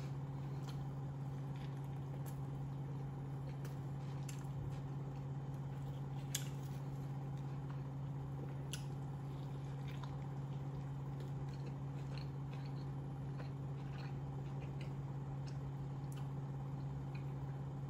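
A person chewing a mouthful of burger, with faint mouth clicks scattered throughout, over a steady low hum.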